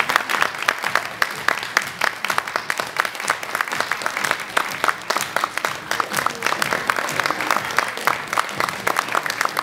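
Audience applauding: many hands clapping steadily and unevenly.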